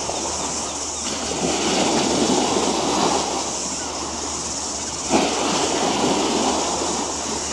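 Outdoor harbour-front ambience: a steady rushing noise that swells and fades over a low hum, with a sudden surge about five seconds in.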